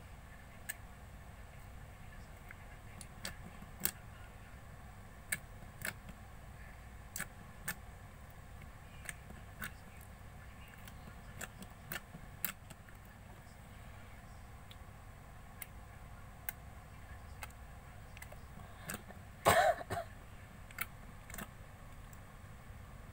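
Slime being mixed and squished by hand: scattered sharp clicks and small air-bubble pops at an irregular pace, with one louder crackling squelch about twenty seconds in.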